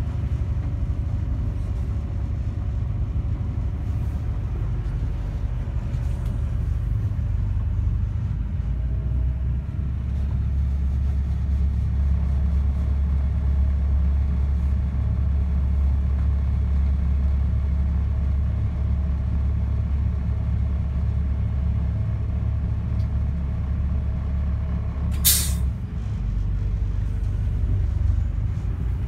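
The yacht's 1929 Winton diesel engine running with a steady low rumble, growing heavier about ten seconds in as the control levers are worked, then easing back. About 25 seconds in there is one brief sharp hiss, after which the engine note drops.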